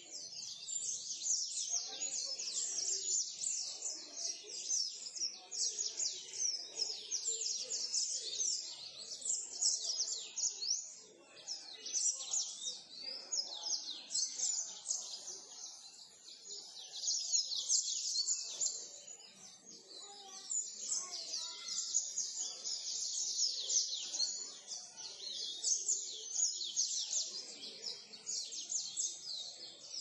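A chorus of caged canaries and finches, among them black-throats, yellow-eyes and green singers, singing and chirping all at once. It is a dense, continuous high twittering with short lulls about a third of the way in and again around two-thirds.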